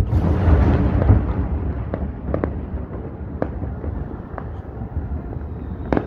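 Many fireworks bursting across a city at once: a dense rumble of overlapping bangs that starts suddenly, loudest in the first second or two, with sharp single cracks scattered through it.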